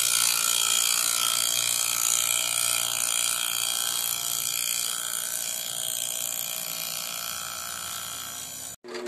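CNC router spindle running with its cutter milling the side of a hardwood block: a steady high whine over the fast rattling chatter of the cutter in the wood, gradually getting quieter. Near the end it cuts off abruptly and a different machine's steady hum follows.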